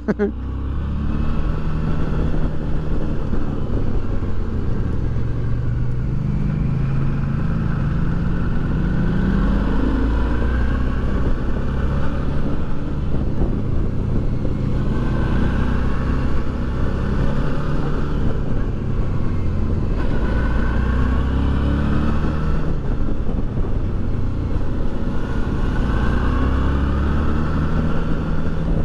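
Motorcycle engine running on the move, its pitch climbing several times as it accelerates and dropping back between climbs, over a steady rush of noise.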